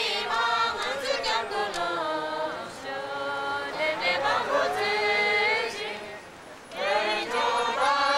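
A crowd singing a slow song together in unison, with long held notes in drawn-out phrases and a short break about six seconds in.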